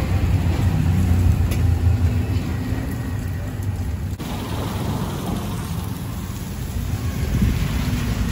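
A motor engine running with a low, steady rumble.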